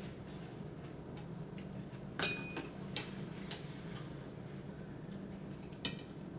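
A metal spoon and chopsticks tapping and clinking against a ceramic bowl while eating noodle soup: a few light clicks, with one brief ringing clink about two seconds in. A faint steady hum runs underneath.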